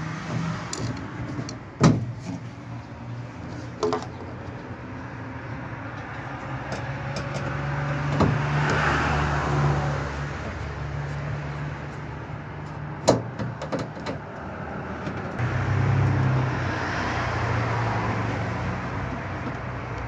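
Screwdriver working loose the plastic panels of a Hitachi washing machine's cabinet, with a few sharp plastic clicks and snaps, over road traffic that swells twice.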